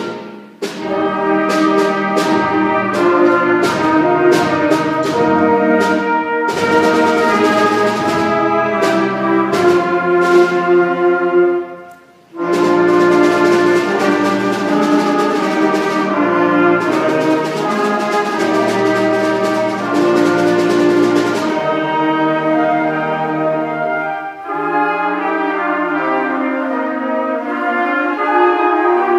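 School concert band of brass and woodwinds playing a slow piece in held chords, with percussion strikes. The band stops briefly about twelve seconds in, then resumes, and the playing turns softer and thinner near the end.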